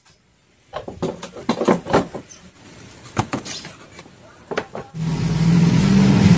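Hard plastic ride-on toy car dashboard parts being handled and fitted, knocking and clicking irregularly. About five seconds in, a louder steady machine hum with one constant pitch and a hiss starts.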